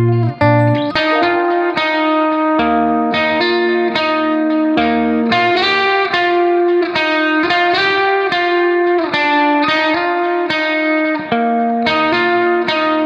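Background music: a plucked guitar melody, notes picked in a steady repeating pattern.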